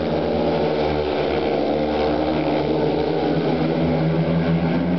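Speedway motorcycles' single-cylinder 500cc methanol engines running hard as the bikes race around the dirt track, a steady, dense engine note with no let-up.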